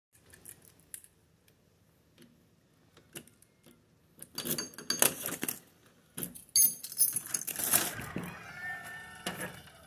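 Keys jangling and a door's lock and knob rattling and clicking as it is unlocked and opened; the loudest clatter comes about six and a half seconds in. A brief wavering squeak follows near the end.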